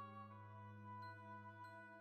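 Soft background music: held notes changing pitch every second or so, with a few light struck notes.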